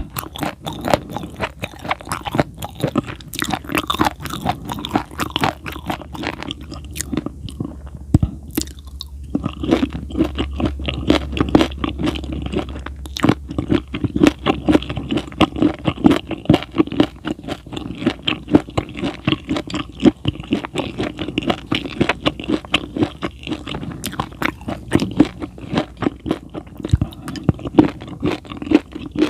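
Close-miked chewing with rapid crunching and crackling, eased briefly about eight seconds in.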